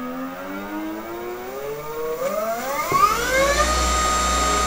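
A 2 kW electric car-conversion motor running with no load through its controller. Its whine climbs steadily in pitch as it speeds up, rises more quickly about three seconds in, then levels off into a steady high whine at top speed.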